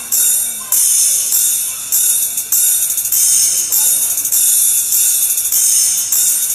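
Treble test section of a sound check track played through a Bose L1 Compact line-array PA speaker: bright, high-pitched tambourine-like percussion hits repeating a little more than once a second, with a busier run of quick hits in the middle.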